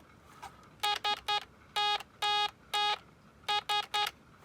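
Tone oscillator on a 1980s Tandy spring-terminal electronics kit, keyed in Morse code to send SOS: three short beeps, three long, three short. The tone is buzzy and steady in pitch.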